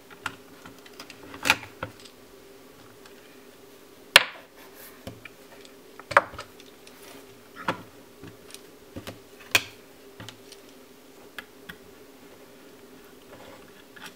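Sharp plastic clicks and snaps of a portable USB hard drive's casing being pried apart and handled, about half a dozen, the loudest about four seconds in, over a steady low hum.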